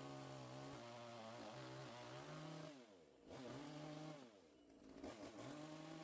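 Two-stroke Titan petrol chainsaw with a 49 cm bar running while cutting into a log, heard quietly. Its engine note drops twice and picks back up.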